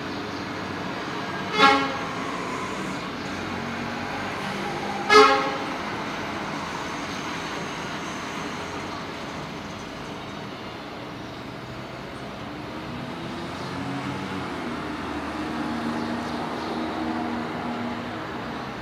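City street traffic with a vehicle horn tooting twice, two short blasts about three and a half seconds apart. The traffic noise swells with engine sound near the end.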